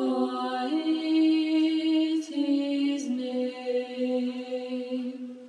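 Shape-note hymn sung a cappella by female voices in harmony, holding long notes with a slight vibrato. The last chord fades out near the end.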